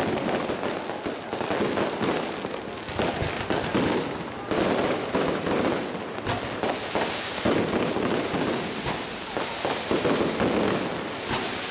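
Fireworks going off in a dense, continuous barrage of rapid crackling bangs as aerial shells burst overhead.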